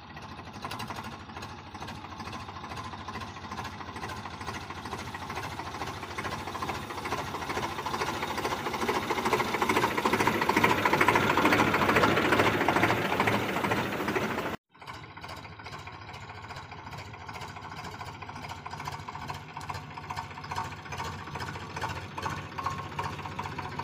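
Eicher tractor's diesel engine running under load as it pulls a loaded trolley, with a fast, even chugging. It grows louder in the middle, breaks off abruptly for a moment about fifteen seconds in, then carries on.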